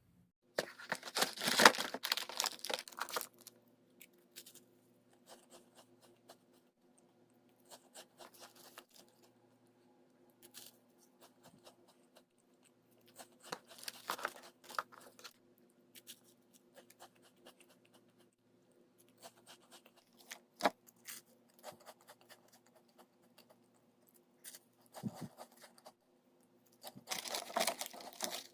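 Plastic food packaging being torn open and crinkled in three bursts, the longest about a second in, a shorter one midway and another near the end, over a faint steady hum.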